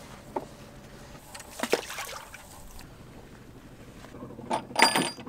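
A mooring line being handled on a sailboat's deck, freed from its cleat and coiled by hand. Scattered rope rustles and knocks, with a louder cluster near the end that includes a short metallic ring.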